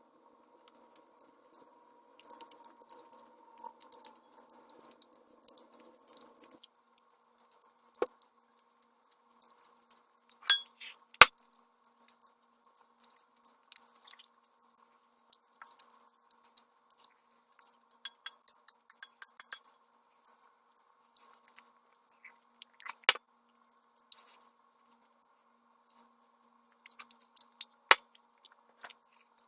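Someone eating spicy instant ramen noodles: soft wet chewing and crackly mouth noises, broken by a few sharp clinks of tableware.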